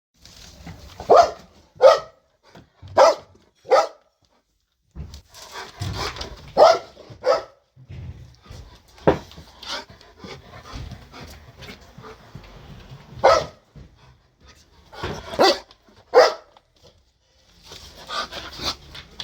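Belgian Malinois dog barking loudly: single deep barks at uneven intervals, often in pairs, about a dozen in all.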